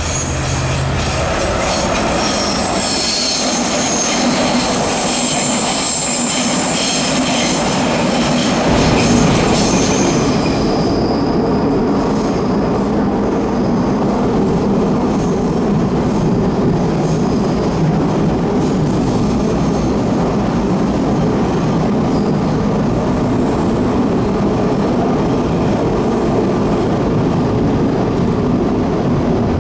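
Berlin S-Bahn class 485 electric train passing close on a curve, its wheels squealing high on the rails. About ten seconds in, this gives way to the steady running noise heard inside a moving class 485 car.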